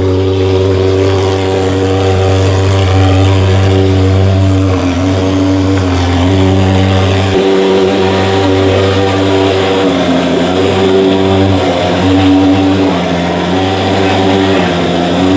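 Thermal fogging machine's pulse-jet engine running with a loud, steady buzzing drone that wavers slightly in pitch.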